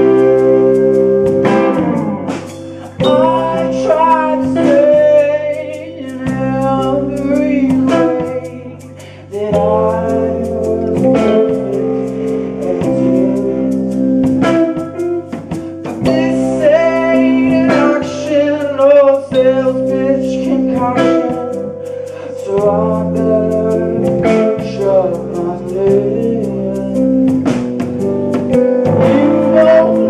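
Live rock band playing: two electric guitars, electric bass, drum kit and keyboard, with a man singing the lead vocal over steady bass notes that change every second or two.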